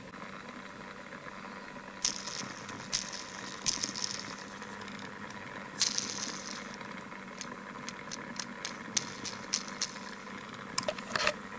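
Handling noise from a small die-cast toy car held and turned in the fingers: scattered light clicks and short rustles that start about two seconds in and come more often in the second half.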